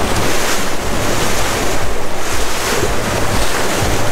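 Steady rush of wind on the microphone and the wake churning along the hull of a Ranger Tugs R25 motor boat underway, with a faint low engine hum underneath.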